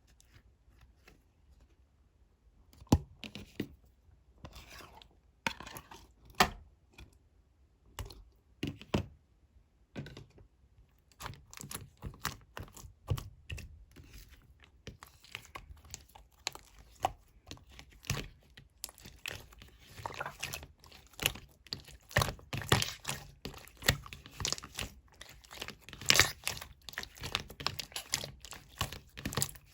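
Clear slime being squeezed and worked by hand, making sticky clicks and small popping crackles. The pops are sparse at first and come thick and fast from about ten seconds in.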